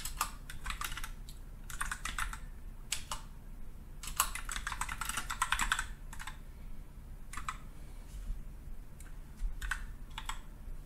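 Typing on a computer keyboard: bursts of rapid key clicks with short pauses between, the longest run about four to six seconds in.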